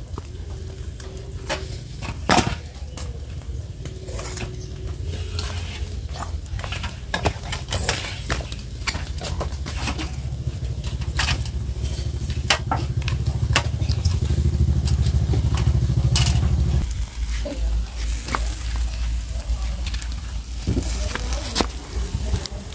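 Marinade basting onto pork pieces grilling over charcoal: sizzling, with repeated sharp clicks and scrapes of a utensil against a metal bowl. A low rumble runs underneath and cuts off about three-quarters of the way through.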